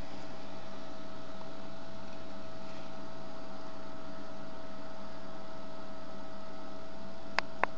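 Steady electrical hum with a hiss under it, from the amateur radio station's gear, with two sharp clicks in quick succession near the end.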